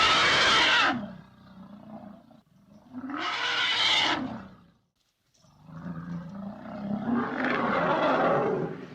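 Vintage stock sound-effect elephant calls: three loud calls in a row with bending pitch, the first already sounding at the start and fading about a second in, the last the longest at over three seconds.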